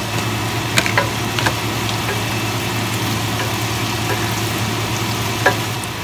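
Garlic and dried red chili peppers sizzling in olive oil in a stainless steel frying pan while a wooden spatula stirs them, knocking against the pan a few times about a second in and once near the end.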